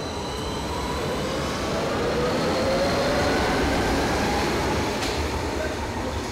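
Berlin U-Bahn train passing through an underground station: a loud running rumble with a motor whine that rises in pitch as the train gathers speed, loudest in the middle.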